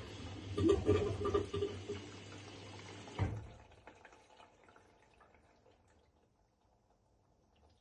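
Washing machine running, water sloshing in the drum over a steady motor hum; a single clunk about three seconds in, after which the machine goes quiet and fades to near silence.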